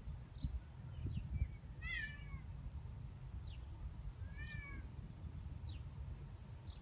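Animal calls: short high falling chirps about once a second, with two louder, longer calls that rise and fall, about two and four and a half seconds in, over a low rumble.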